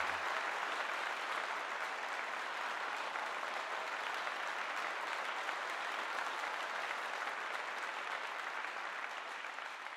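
Audience applauding steadily, just after the orchestra's last low note stops.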